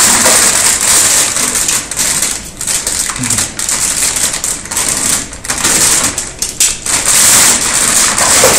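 Silver foil bag crinkling and crackling as it is crumpled and worked open by hand, in quick irregular rustles.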